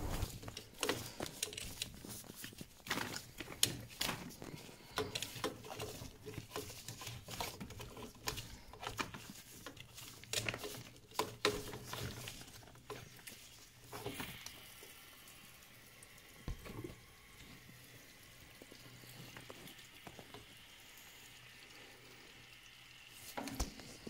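Water draining out of an Alpha Intec 2 boiler through a hose on its plastic drain-off, with scattered clicks and knocks of hands working the drain-off and hose over the first half, then a faint steady trickle.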